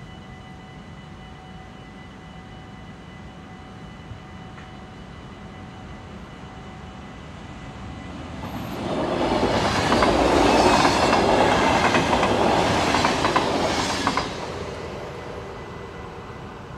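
A train passing over a level crossing: it grows louder from about eight seconds in, goes by loudly for about five seconds with its wheels clattering over the rail joints, then fades away.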